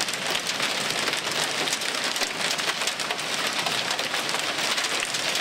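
Heavy rain mixed with small hail falling on a pickup truck and the lawn around it: a dense, steady hiss packed with tiny ticks of individual impacts.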